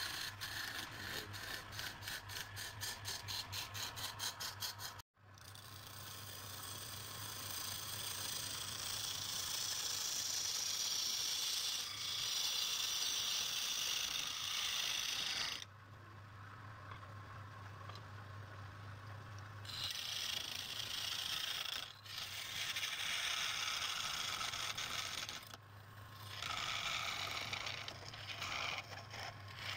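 Wood lathe running with a steady low hum while a tool scrapes the spinning wood in spells of hissing noise. It opens with a fast, even rasping rhythm, breaks off suddenly about five seconds in, and eases to the hum alone for a few seconds around the middle.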